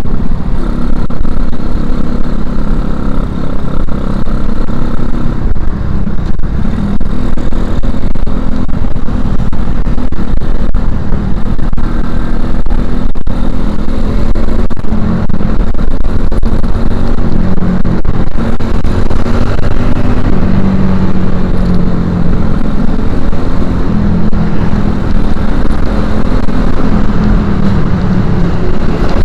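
2011 Suzuki Shogun Axelo R's four-stroke single-cylinder engine running through a stock Suzuki Satria FU 150 silencer while being ridden, heard from the rider's seat. The exhaust note rises and falls with the throttle over a constant heavy rumble.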